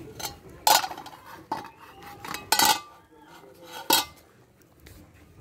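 Metal cooking pot being handled: several irregular, sharp metal-on-metal clinks and clanks, each with a short ring.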